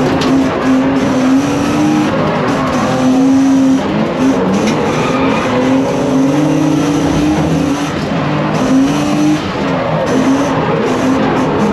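Drift car engine revving up and down hard, with tyres squealing and sliding through drift passes.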